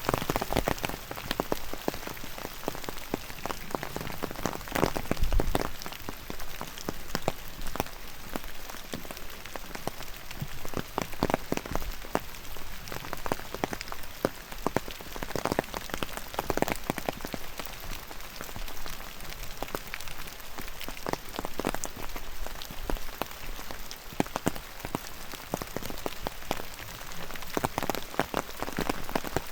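Steady rainfall, with many sharp, close drops and drips pattering irregularly over the steady hiss.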